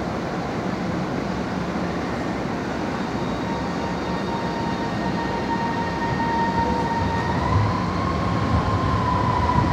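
Beijing Subway Line 7 train running, heard from inside the car: a steady rumble with the electric drive's whine joining a few seconds in and rising slightly in pitch about two-thirds of the way through, as the ride gets louder and the low rumble swells.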